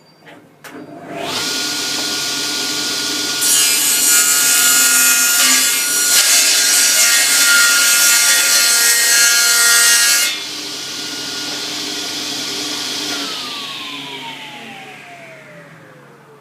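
Charnwood W619 cast-iron table saw switched on with a click, its motor spinning up to a steady whine. About three seconds in, the blade cuts through wood for about seven seconds and the sound gets much louder. The saw then runs free until it is switched off, and its whine falls steadily as the blade winds down.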